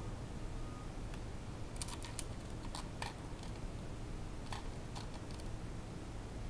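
Small metal clicks and ticks from a wooden snap mousetrap's wire bar and spring as it is handled and set: about ten light clicks, scattered over a few seconds, with no snap. A steady low hum runs behind them.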